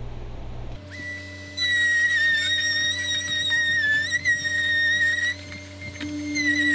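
Dremel rotary tool running at high speed, cutting into a plastic bumper trim panel. It is a steady high-pitched whine that starts about a second in, its pitch dipping slightly now and then as the bit bites into the plastic, and it eases off briefly near the end.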